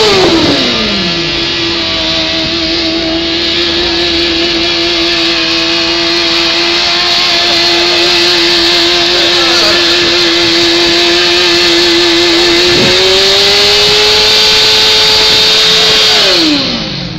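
Sport motorcycle engine held at high revs during a stationary burnout, over the hiss and screech of the spinning rear tyre. The revs dip in the first second, hold steady, climb a little about thirteen seconds in, then fall away near the end.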